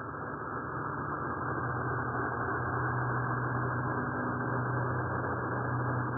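Steady, muffled, low rumble with a constant low hum, growing slightly louder: a tornado sound effect, heard as if from inside a shelter.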